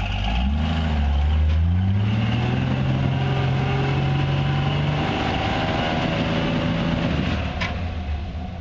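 Off-road 4x4's engine revving up under load as it crawls up a steep rock ledge: the pitch climbs from about half a second in, holds high for a few seconds, steps down about five seconds in and falls away near the end.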